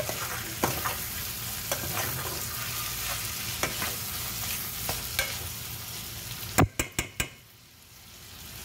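Chicken pieces frying in a pot with a steady sizzle while being stirred, the spoon scraping and clicking against the pot now and then. About six and a half seconds in come four sharp knocks of the spoon on the pot, then the sizzle goes quiet.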